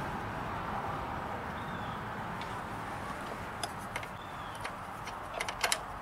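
A few light clicks of a hand tool, a nut driver being handled and fitted to a small fastener in the engine bay. They come in two small clusters, one about the middle and one near the end, over a steady outdoor hiss.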